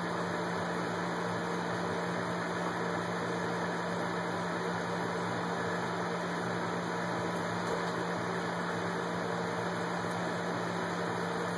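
Steady mechanical hum with a constant low tone, like a small motor or fan running.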